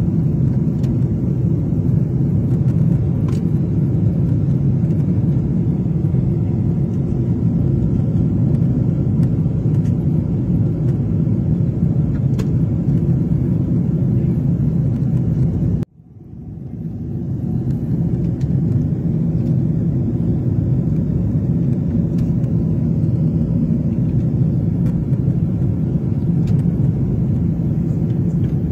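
Steady low rumble of airliner jet engines and airframe, heard inside the passenger cabin as the plane taxis. About halfway through it cuts out abruptly, then swells back to the same level over a couple of seconds.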